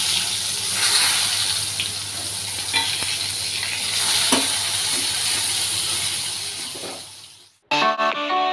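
Eggplant slices sizzling steadily as they fry in hot oil in a wok, with a couple of light clinks. The frying fades out near the end and guitar music comes in.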